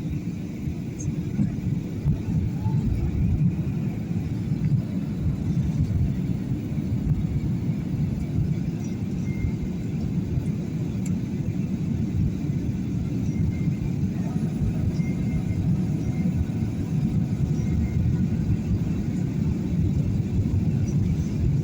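Airliner cabin noise heard from inside the passenger cabin: a steady low rumble of engines and airflow during the approach to landing.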